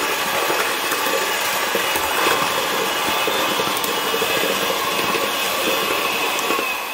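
Electric hand mixer running steadily, its beaters churning a crumbly cheesecake base mix with melted butter in a mixing bowl. It stops at the very end.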